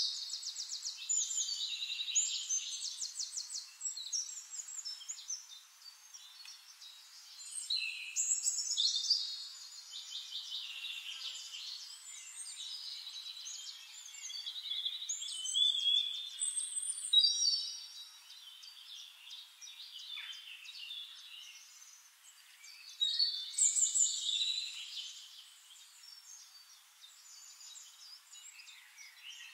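Small birds chirping and trilling in quick, high phrases that come in bursts every few seconds.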